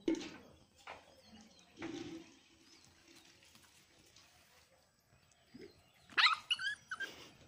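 A dog barks a few times, loudest right at the start, then gives a quick burst of high-pitched cries about six seconds in.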